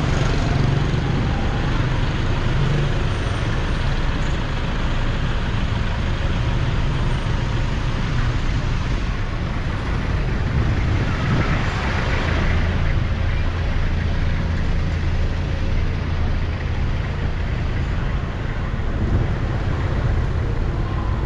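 Steady street traffic noise with a low rumble of engines, swelling for a few seconds about halfway through as something passes.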